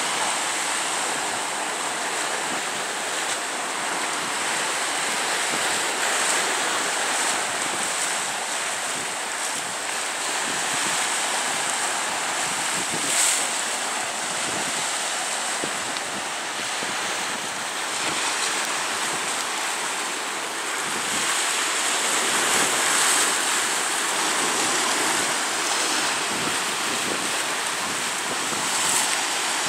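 Waves washing in and splashing against rocks along the shore, a steady surf noise that swells a little now and then, with some wind.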